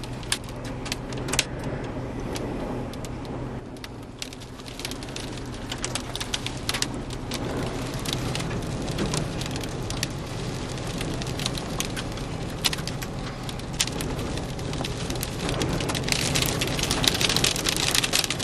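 Sand and grit pelting a van's body and windows in a dust storm, heard from inside: a dense, irregular ticking over a low steady rumble from the van. The pelting grows heavier and louder near the end.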